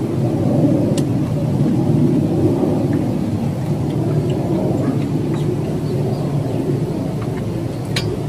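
Steady low rushing noise, with a light clink of a utensil against a metal pot about a second in and another near the end.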